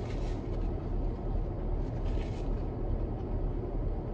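Steady low rumble in a parked car's cabin, such as an idling engine or climate fan, with a couple of faint short rustles near the start and about two seconds in.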